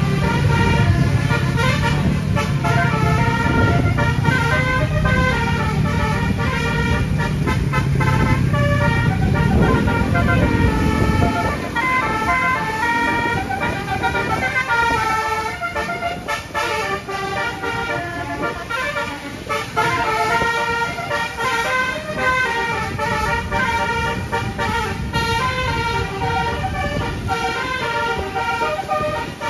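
Bus telolet horn playing a long run of melodic toots, the notes stepping up and down in pitch, over a low engine rumble that falls away about eleven seconds in.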